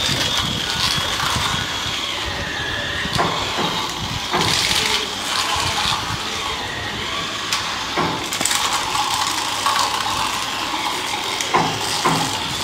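Battery-powered toy Thomas train's small electric motor and gears whirring steadily as it runs along plastic roller-coaster track, with a few sharp clacks over the track joints.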